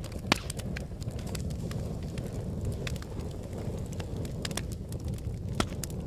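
Wood fire burning in a fireplace: a steady low rush of flame with sharp crackles and pops scattered throughout. The loudest pops come about a third of a second in and near the end.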